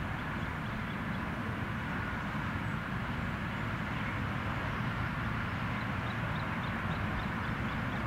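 Steady outdoor noise with a low rumble, and faint short high chirps repeating a few times a second.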